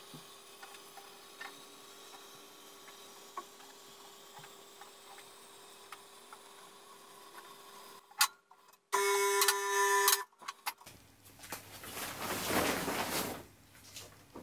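Two-post car hoist lowering a car: a faint steady hum with light ticking. About nine seconds in comes a loud steady whine lasting about a second, followed by rustling of a fabric car cover being lifted.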